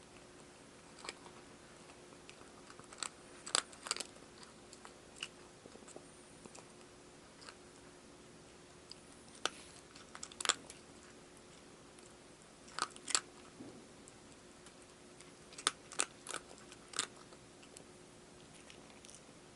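A cat crunching dry food, with sharp bites coming in short clusters and gaps between them.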